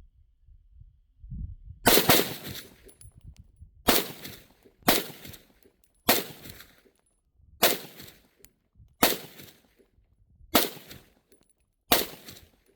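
An AR-style pistol in .300 Blackout firing about eight single shots at a steady, deliberate pace, roughly one to one and a half seconds apart, each shot followed by a short echoing tail.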